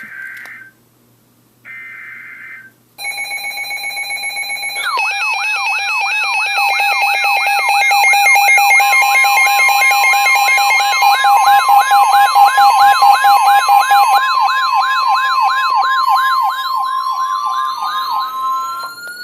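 Emergency alert tones on NOAA Weather Radio: two short bursts of digital data, the coded header that opens an EAS alert, then a loud warbling, siren-like alarm over steady tones that runs for about fourteen seconds and stops shortly before the end.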